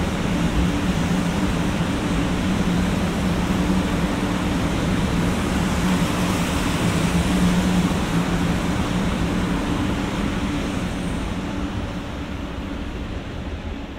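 500 Series Shinkansen train running out along the platform track: the steady noise of its wheels on the rails over a low, steady electric hum, fading from about eleven seconds in as the last car passes.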